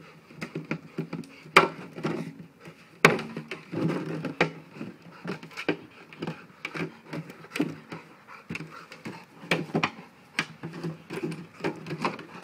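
A Rottweiler biting and nosing a 5-gallon plastic water bottle: irregular knocks, clicks and scrapes of teeth and muzzle on the plastic, a few a second.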